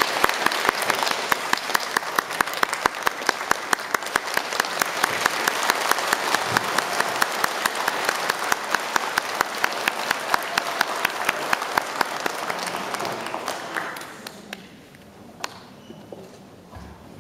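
Audience applauding, with one nearby pair of hands clapping sharply at about four claps a second over the general clapping. The applause dies away about fourteen seconds in, leaving a hush with a few small knocks.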